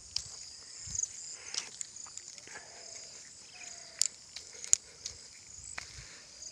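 Insects chirring steadily in a high, pulsing chorus, with footsteps on a field path. Two sharp clicks come about four seconds in.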